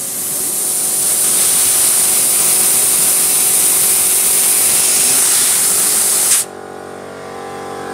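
Compressed air hissing steadily from a blow gun pressed into a motorcycle rear brake caliper's fluid port to force out the pistons. The smaller piston stays stuck, so the air just escapes. The hiss cuts off suddenly about six seconds in, leaving a lower steady hum.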